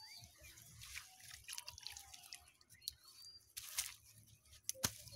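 Water dripping and splashing in irregular small bursts from a bamboo-framed push net being handled in shallow river water, with a sharp click near the end.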